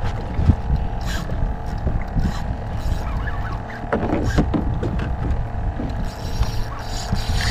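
A small fishing boat with a steady mechanical hum over a low rumble, and a few light knocks scattered through.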